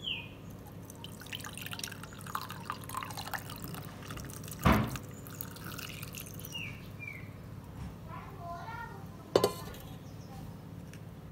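Hot herbal decoction (kashayam) poured from a steel pot through a plastic tea strainer: liquid splashing and dripping with small clinks. Two sharp knocks, about four and a half seconds in and near the end, are the loudest sounds.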